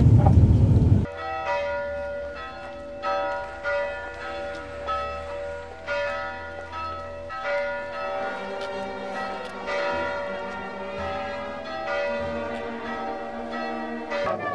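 Church bells pealing, struck about once a second with each stroke ringing on under the next. They come in about a second in, where the loud low rumble of a train interior cuts off.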